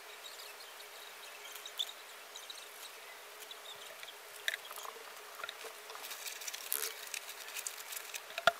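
Pencil scratching on paper while sketching: short, irregular scratchy strokes that come thicker in the second half, ending with one sharp tap near the end.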